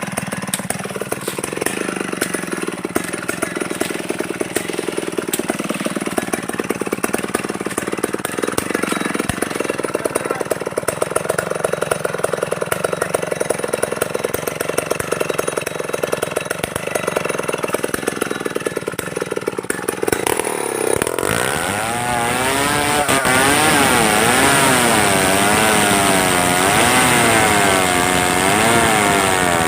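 Stihl 070 two-stroke chainsaw running at low throttle with a pulsing beat, then, about 21 seconds in, opened up to high revs, its pitch wavering up and down.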